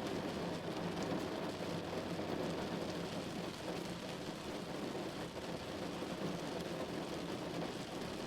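Heavy rain falling steadily on a moving car: a dense, even hiss of rain and spray with no break.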